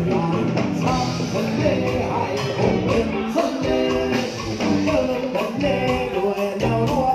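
A live Thai band playing a song with a steady drum beat.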